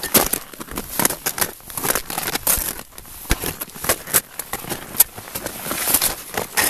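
Rustling and crackling of clothing rubbing against the camera's microphone, with many irregular sharp clicks.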